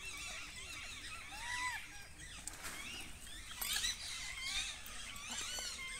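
Many birds chirping and calling at once, short overlapping whistled notes, with a louder burst of calls about three and a half seconds in.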